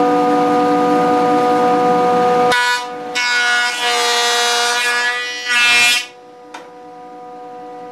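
Jointer running with a steady whine. From about two and a half seconds in, the louder, rougher noise of its cutterhead planing the scarf face of a guitar neck blank, stopping abruptly about six seconds in, after which the whine carries on more quietly.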